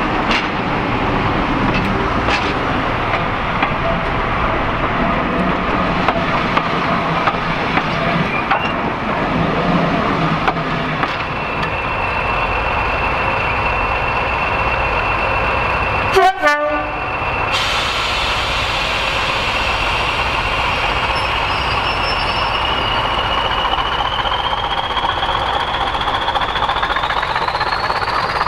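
Diesel locomotives working trains at low speed, engines running. In the second half, a pair of English Electric Class 20 diesel locomotives gives a steady high whistle that rises steadily in pitch over the last several seconds, typical of their turbochargers as they power up.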